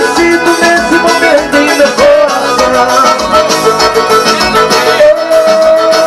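Instrumental music with no singing: a band plays a passage between sung lines, with plucked strings prominent.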